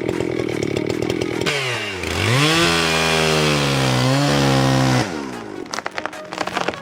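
Chainsaw running, dipping in pitch about a second and a half in, then revving up to a loud, high, steady pitch for about three seconds as it cuts. It drops back near the five-second mark, leaving a spell of irregular clicks and cracks.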